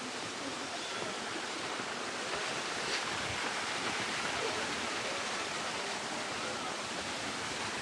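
Steady rushing of water falling and running over rocks at Jhor waterfall, a constant even wash of noise.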